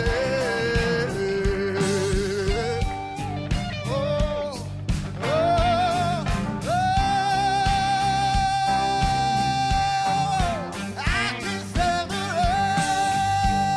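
A man singing a soul-rock song into a microphone over band accompaniment with a steady beat. Near the middle he holds one long high note with vibrato for about four seconds.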